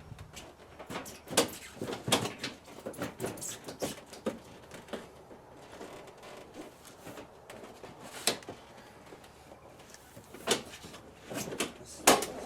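Plastic front bumper cover of a Toyota Corolla knocking, clicking and scraping as it is pushed and pulled into place against its mounting pins and clips, with a run of sharp knocks in the first few seconds and more near the end.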